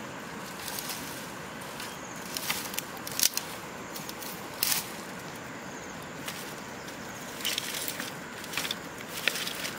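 Dry branches and twigs snapping and rustling as they are broken off by hand and gathered, a string of sharp, irregular cracks.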